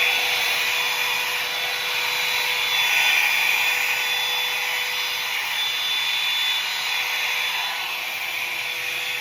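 Hair dryer running steadily: an even motor hum at a constant pitch with airflow noise.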